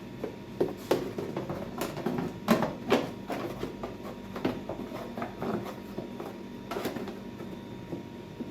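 Irregular knocks and clicks of a plastic snowblower belt cover being fitted into place and its bolts handled, loudest about two and a half to three seconds in.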